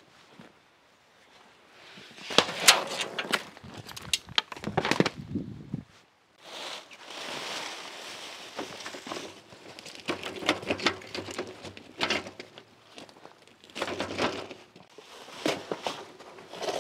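Clattering and rattling of a steel-framed portable cement mixer being uncovered and wheeled over gravel, with footsteps and the rustle of a plastic sheet. The knocks come in two spells, with a stretch of rough scraping and rustling between them.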